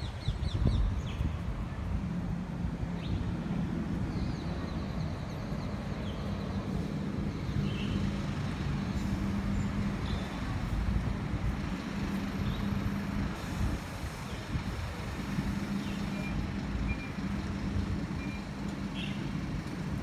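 Road traffic: a steady low engine hum with a faint wash of passing vehicles.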